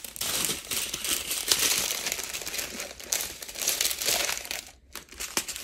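Strips of thin clear plastic zip bags holding diamond-painting drills crinkling and rustling as they are handled and shuffled, with a brief pause near the end.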